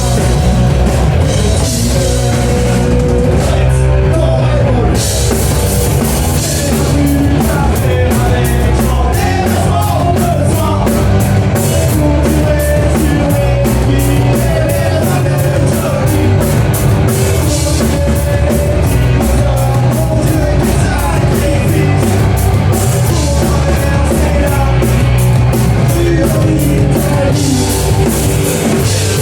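Punk-tinged rock band playing live, with a drum kit, bass and a singing voice. About six seconds in, the drums settle into a fast steady beat on the cymbals, about four strikes a second.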